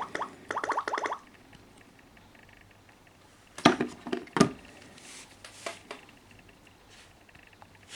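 A Samsung Galaxy phone's electronic ringtone or alarm sounding in quick repeated notes, cutting off about a second in. Halfway through, two loud sharp knocks come less than a second apart, followed by a few faint ticks.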